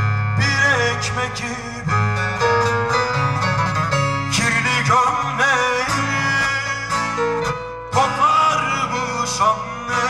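Live Turkish folk music played through a PA: a bağlama (long-necked saz) plucked over electronic keyboard backing, with a man singing.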